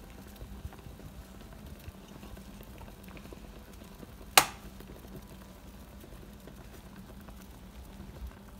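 A pot of potatoes at a rolling boil, the water bubbling and crackling steadily. One sharp knock sounds about four seconds in.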